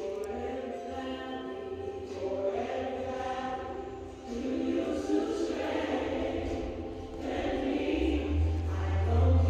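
Gospel choir music: a choir singing held, wavering notes, fuller from about four seconds in, with a deep bass coming in near the end.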